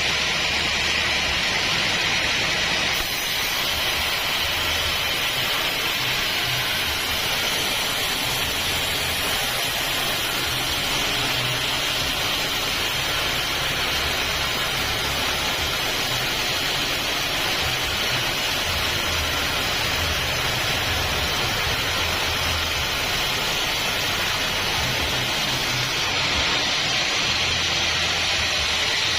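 Sawmill bandsaw running and cutting acacia wood: a loud, steady noise, its higher part changing about three seconds in and again near the end.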